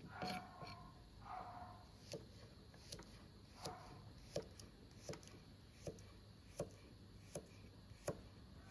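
Kitchen knife cutting a carrot into sticks on a wooden chopping board: faint handling and rustling at first, then a steady series of sharp knocks on the board, about one every three-quarters of a second.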